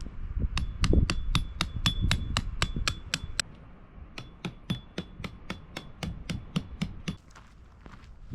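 A rapid, even series of sharp metallic strikes, about four a second, in two runs with a short pause between, with a faint ringing after the strikes.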